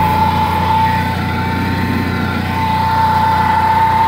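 Honda 4514 riding mower's liquid-cooled engine running steadily, a steady whine sitting over the engine note, in its first run after five to six months of sitting unused.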